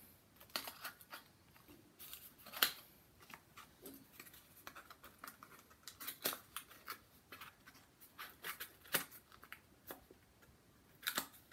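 Irregular light clicks, taps and scrapes of small kraft-cardboard mini pizza boxes being handled, set down and pressed onto a cardboard board, with papery rustling as one box is readied for gluing.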